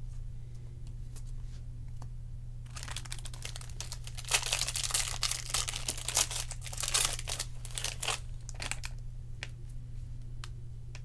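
Plastic trading-card pack wrapper being torn open and crinkled by hand: a burst of crackling that starts about three seconds in, peaks in the middle and dies away near nine seconds, over a steady low hum.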